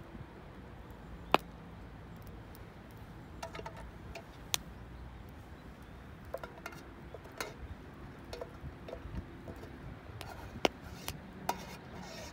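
Scattered light clicks and clinks of hard objects being handled, a few with a short ring, two of them sharper and louder than the rest, over a steady low background noise.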